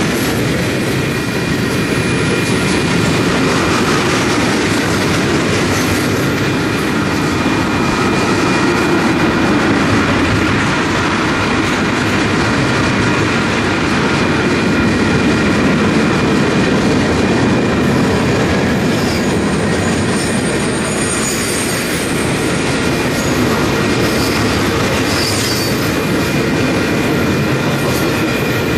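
Freight cars of a long mixed freight train rolling past: steady noise of steel wheels on rail with a thin, steady wheel squeal. Brief higher squeals come about two-thirds of the way through.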